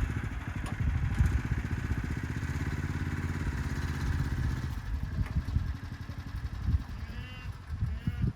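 A vehicle engine running at low revs, easing off about five seconds in.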